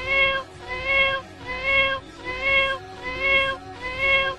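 Cat meows repeating at an even pace, a little more than one a second, each call the same slightly rising, then level tone as the last, like a looped meow recording.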